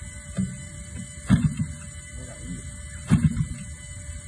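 A model aircraft engine being hand-flipped with a chicken stick to start it. The stick knocks on the propeller three times, twice sharply, about two seconds apart, and each flip gives a brief low sputter that dies away without the engine catching.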